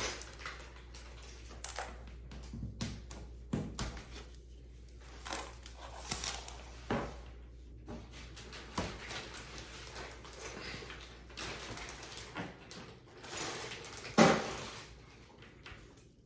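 Scattered knocks, clicks and thuds of flat-pack furniture parts being handled and fitted together, with one louder thud about fourteen seconds in.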